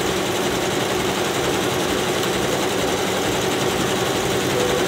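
Multi-needle embroidery machines running with a steady mechanical hum.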